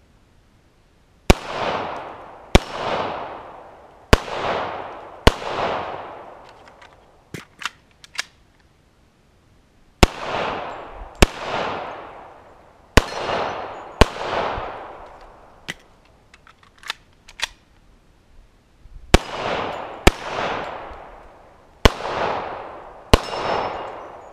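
Hi-Point .45 ACP pistol firing twelve shots in three strings of four, each shot followed by a long echo that dies away over about a second. A few lighter clicks fall in the pauses between strings.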